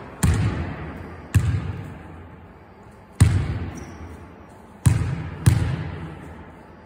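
A basketball bouncing on a sports hall floor during free-throw practice. There are five sharp thuds, spaced unevenly, and each one rings on in the hall's echo for about a second.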